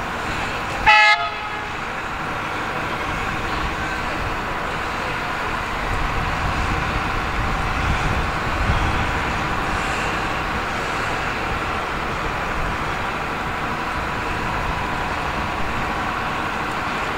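A short, loud toot on a diesel locomotive's horn about a second in, followed by the steady sound of heritage EMD diesel locomotives running.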